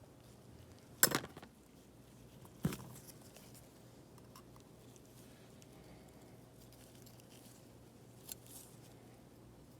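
A few short, sharp clicks and taps from small hand repair tools handled against the work surface and parts: two near the start, about a second and a half apart, and a fainter one near the end, over a low steady hum.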